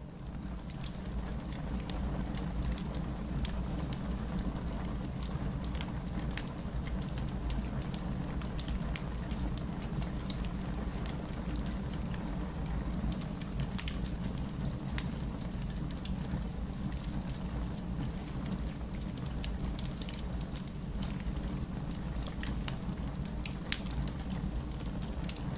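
Rain falling together with a crackling wood fire: a steady hiss and low rumble with scattered sharp pops and crackles throughout.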